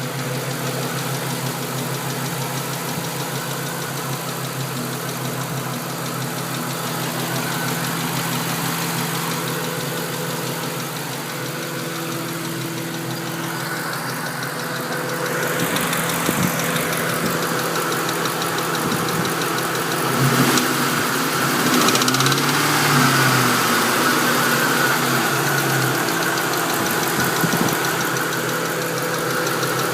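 2001 Ford Mustang GT's 4.6-litre V8 idling warm with a ticking noise, which the owner thinks comes from the driver-side cylinder head; it is loudest under the car by the exhaust manifold. The sound gets louder about halfway through.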